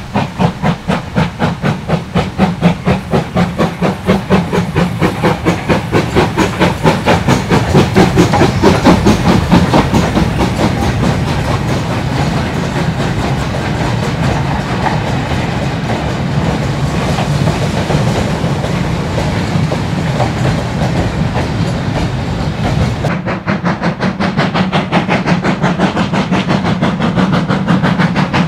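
Steam locomotive GWR 7820 Dinmore Manor, a two-cylinder Manor-class 4-6-0, passing at speed with a short goods train. Its exhaust beats come fast and regular and are loudest as it goes by, about eight seconds in. Then the wagons rattle and clank past over the rail joints.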